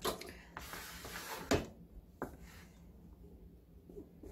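Kitchen handling noises on a wooden cutting board: a sharp knock, a brief rustling scrape, then two more light knocks as a plastic tray and the vegetables are moved about.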